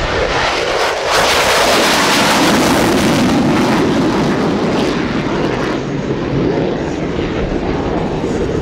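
F-16 fighter jet's engine in afterburner during a low pass and steep climb-out: a loud, even rushing jet noise. It is loudest from about one to four seconds in, then eases slightly as the jet climbs away.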